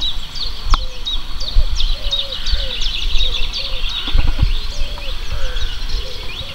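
Spring dawn chorus of many small birds chirping and trilling high up, with a lower arched call repeating about twice a second. A few low thumps come through underneath, the strongest about four seconds in.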